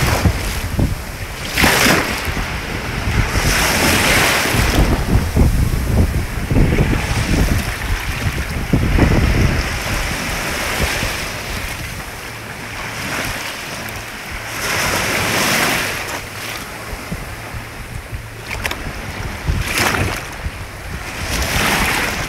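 Small sea waves washing onto a beach, with swells of rushing water every few seconds, and wind buffeting the microphone with a low rumble.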